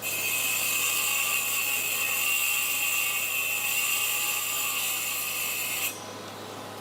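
An electric power tool runs steadily with a high whine over a hiss, then switches off abruptly about six seconds in.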